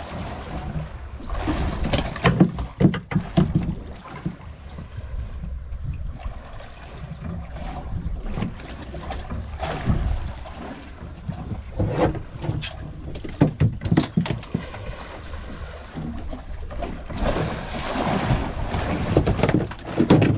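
Wind buffeting the microphone and water lapping against the hull of a drifting fishing boat, with irregular knocks and clatter as gear is handled on the deck.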